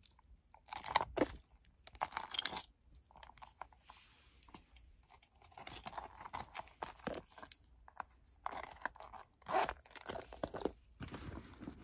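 Small zippered pouches and bag accessories being handled: irregular rustling and light clicks, with short quiet gaps, busier in the first couple of seconds and again near the end.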